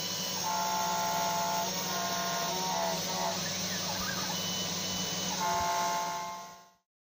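CNC 3040 desktop router milling a copper-clad circuit board: its 200 W spindle motor runs with a steady hum under the hiss of cutting. Whining tones come and go in short spells, typical of the stepper motors driving the axes. The sound fades out near the end.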